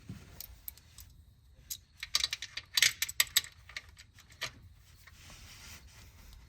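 Ratchet wrench clicking in quick runs as the oil drain plug is tightened, the loudest run a little after two seconds in, with a few lone clicks before and after.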